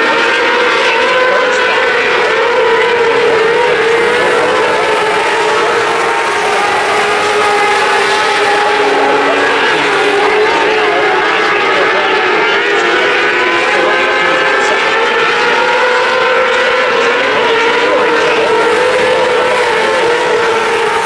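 Several winged 600cc micro sprint cars running together on a dirt oval, their motorcycle engines at high revs, pitch wavering up and down as they lap.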